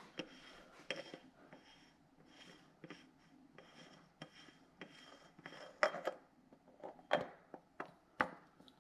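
A Subaru spin-on oil filter being unscrewed by hand from its housing: faint scrapes of the metal canister on its threads and seal, about every half second. In the last few seconds there are a few sharper clicks and knocks as it comes free and is lifted off.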